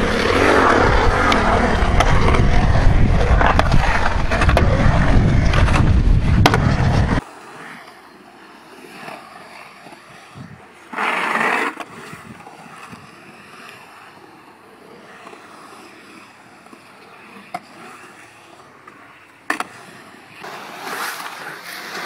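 Skateboard wheels rolling on the concrete of a skatepark bowl: loud and rumbling for about the first seven seconds, cutting off abruptly, then fainter rolling with a few sharp knocks of the board.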